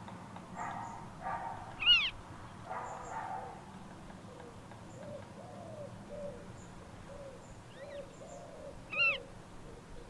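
Birds calling: two loud, short, high calls that rise and fall, about seven seconds apart, the first about two seconds in and the second near the end. Rougher, harsher calls come in the first few seconds, and soft low notes repeat in between.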